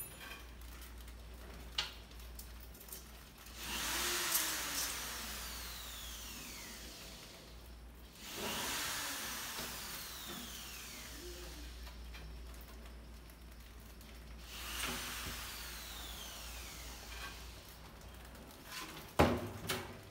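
Rats scrabbling and scratching on wood and glass, heard as three long scraping, rustling swells. A sharp knock near the end is the loudest sound.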